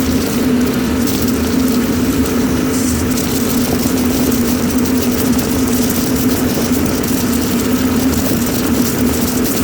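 Duct-cleaning power vacuum running steadily with a constant, even hum.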